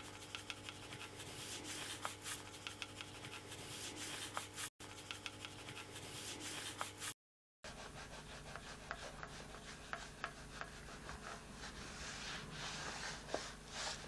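Pencil scratching and rubbing across paper in quick strokes, over a faint steady hum. The sound breaks off briefly twice, a little under five and about seven seconds in.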